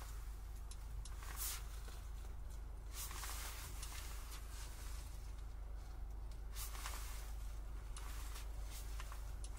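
Quiet car cabin: a steady low hum with a few soft clicks and brushing sounds as a hand taps and swipes the central touchscreen.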